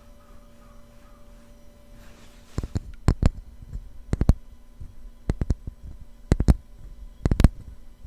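Wooden ladle being tapped in ASMR style. After a short lull, a soft rustle of handling comes about two seconds in, then sharp, crisp taps follow in ones, twos and threes, irregularly spaced, over a low steady hum.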